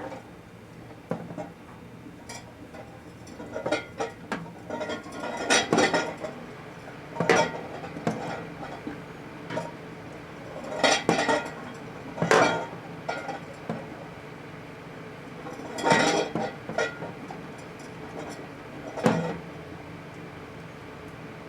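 Microwave oven running with a steady hum, broken about every one to four seconds by irregular clusters of sharp, clinking clicks as a high-pressure sodium bulb heats inside it.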